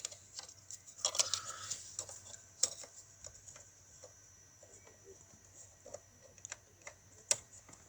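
Irregular small plastic clicks and knocks as a car horn relay is handled and pushed into its socket in the relay box, with a sharper click near the end.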